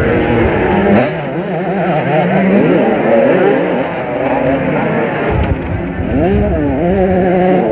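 Several motocross motorcycles racing past, their engines revving hard. The overlapping engine notes keep rising and falling in pitch as the riders work the throttle and shift gears.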